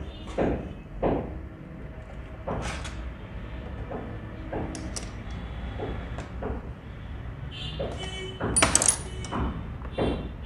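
An old sewing machine head being worked by hand on the bench: clicks and knocks of metal parts as its handwheel is turned and the mechanism is adjusted. It starts as a regular knock about every two-thirds of a second, then turns to scattered clicks, with the loudest metallic clatter about eight and a half seconds in.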